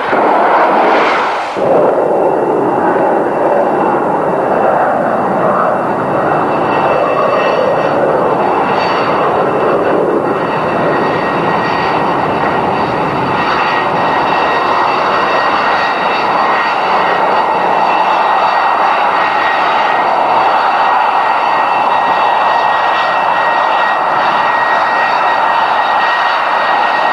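MiG-29 fighter's twin turbofan jet engines running as it taxis: a steady, loud jet roar with high whining tones held through it.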